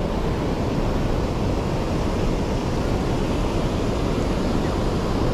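Steady wind rushing over the microphone outdoors by the water, an even noise with no distinct events.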